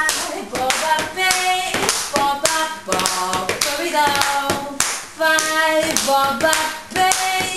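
Wordless singing that steps through held notes, over a running rhythm of hand percussion: hands slapping and tapping on the legs and body.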